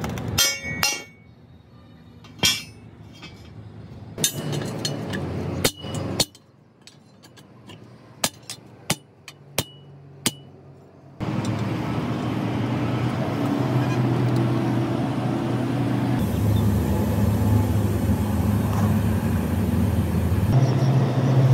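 Scattered hammer blows and metal clinks, some ringing briefly, on the steel of a truck rim. About halfway through they give way to a truck's engine running steadily.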